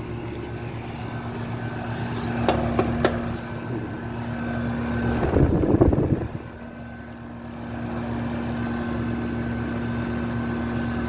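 Outdoor unit of an Amana central air conditioner running: a steady hum from its Bristol compressor and condenser fan. A louder rough rumble, like wind or handling on the microphone, briefly covers it about five to six seconds in, with a couple of light clicks before that.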